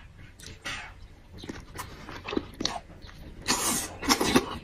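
Close-miked eating: biting into and chewing a soft slice of meat, with wet mouth clicks and smacking. There are two louder wet bursts near the end.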